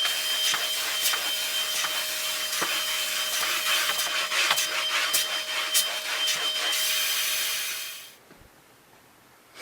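Carpet-cleaning extraction vacuum running through the hose and wand, a steady rushing suction with a high whine and scattered clicks. It dies away near the end as the suction is shut off.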